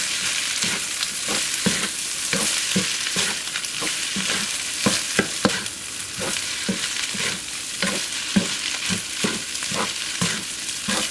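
Egg-coated cold rice sizzling in a hot oiled non-stick wok on high heat while it is stir-fried, with a wooden spatula scraping and knocking against the pan about two to three times a second.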